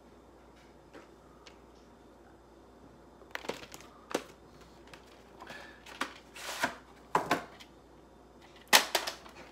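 A VHS cassette being handled and slid out of its sleeve: a string of irregular plastic clicks and rustles, starting about three seconds in.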